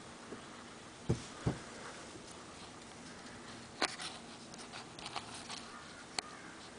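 Handling noise from a handheld camera: two dull thumps about a second in, then a scatter of sharp clicks and rustles from about four seconds in, over a steady faint background hum.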